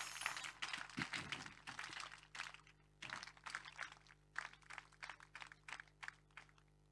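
Faint, scattered short taps at an irregular pace, thinning out and stopping near the end.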